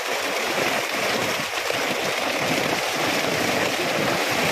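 Steady splashing and churning of pond water as a drag net full of fish is hauled through it.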